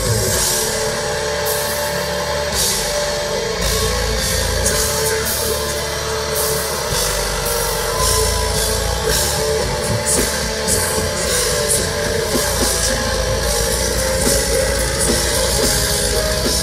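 Deathcore band playing live and loud: heavily distorted guitars over a drum kit, with stretches of heavy low drumming.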